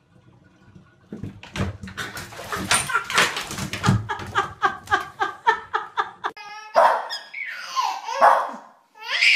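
A person laughing in a quick rhythmic run of bursts from about a second in, then a dog giving high yips and whines over the last few seconds.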